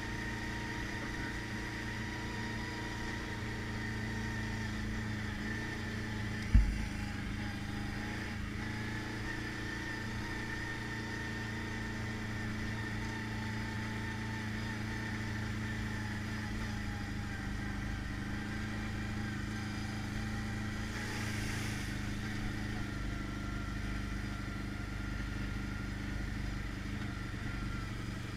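ATV engine running steadily while riding a rocky dirt trail, with one sharp thump about six and a half seconds in.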